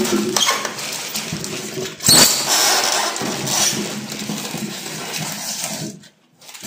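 Thin plastic packing bag crinkling and rustling as hands handle a water heater and pull it out of its box, with rubbing against cardboard and polystyrene foam packing. The loudest crackle comes about two seconds in, and the sound drops out briefly near the end.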